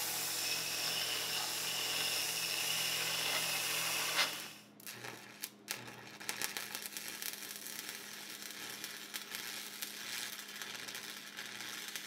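A vertical band saw running steadily as its blade cuts through steel stock, stopping abruptly about four seconds in. Then a stick welder's arc crackles and sputters irregularly as a weld bead is laid.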